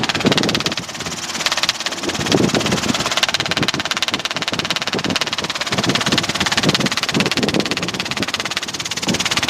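Robinson R22 helicopter in flight heard from inside the cabin: its piston engine and rotor running steadily, with a fast, even chop.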